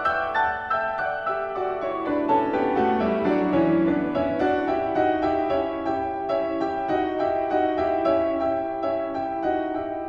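Background piano music: a run of notes falling in pitch over the first few seconds, then a steady pattern of repeated notes.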